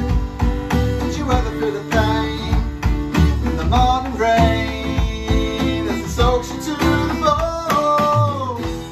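A man singing over a strummed acoustic guitar, with a steady rock beat played on an electronic drum kit. The music drops away briefly at the very end.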